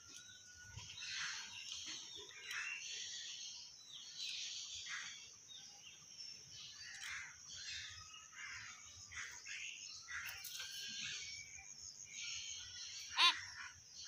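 Common hill myna giving a string of short chirps and rasping calls, with one loud, sharp call near the end.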